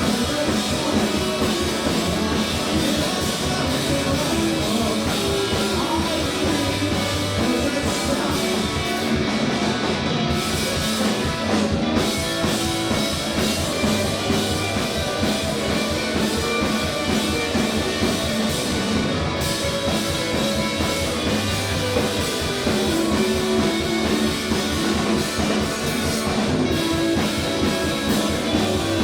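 Live indie rock band playing loudly, with drum kit and electric guitar driving a fast, steady beat.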